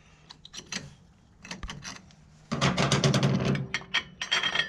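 Clutch friction discs and steel plates being pulled by hand out of a Harley-Davidson Shovelhead's clutch basket. It starts with a few light metallic clicks, then from about halfway through there are a couple of seconds of dense clattering and scraping as the plates slide against each other and the basket.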